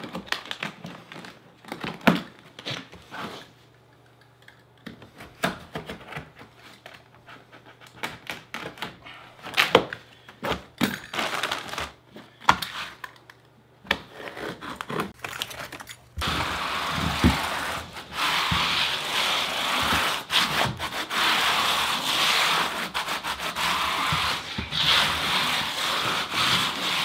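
A plastic DITRA-HEAT membrane being rubbed and scraped as it is pressed down into wet thin-set mortar by hand and with a flat tool. At first separate scrapes and taps, then from about two-thirds of the way in a denser, continuous rubbing with small clicks.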